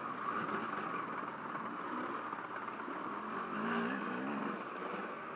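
Dirt bike engine running under throttle as the bike splashes through standing water on a trail, with the revs rising and falling about two thirds of the way through.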